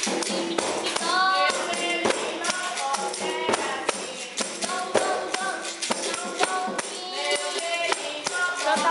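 A child singing a capoeira song while playing the berimbau: the stick strikes the steel string of the gourd-backed bow in a steady rhythm, and the caxixi basket rattle shakes with each stroke.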